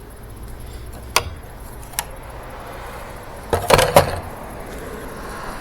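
Hard plastic clicks and knocks from control buttons being pushed onto a washing machine's control panel: two single clicks about a second apart, then a quick run of louder knocks a little past halfway.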